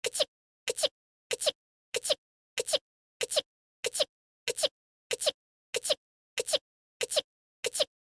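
A voice-acted anime sneeze, one small two-part sneeze looped over and over, about three every two seconds, thirteen times in all.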